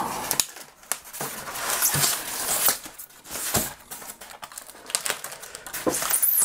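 Polystyrene foam packing and the panels it holds being lifted and handled in a cardboard box: rustling, scraping and a string of sharp clicks and knocks, with a knife working at the packing tape near the end.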